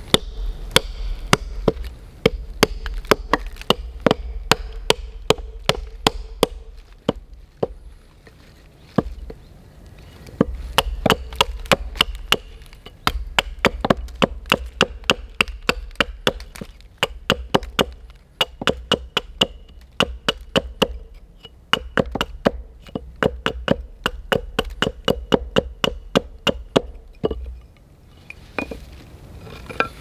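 Small hatchet chopping and shaving a thin branch on a wooden stump chopping block to carve a tent peg: quick runs of sharp chopping knocks, about three or four a second, with a few short pauses between runs.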